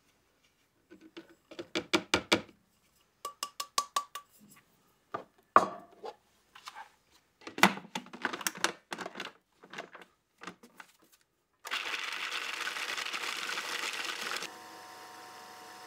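Clicks and clatter of the plastic lid being fitted onto a food processor bowl. About twelve seconds in, the food processor starts, grinding roasted hazelnuts with powdered sugar with a loud rattling whir. A few seconds later it drops to a quieter steady motor hum as the nuts turn to powder.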